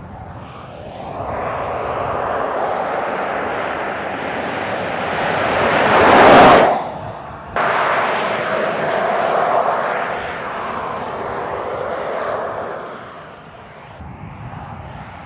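A current-generation Land Rover Defender driving past at speed: its tyre and engine noise builds to a loud peak as it passes about six seconds in, then falls away. The sound drops out for about a second, comes back abruptly, and fades as the vehicle drives off.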